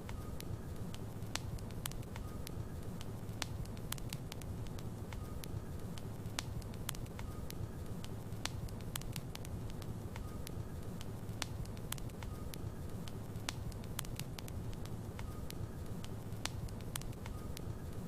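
Logs burning in a fireplace: a steady low rumble of the flames with frequent sharp, irregular crackles and pops from the wood.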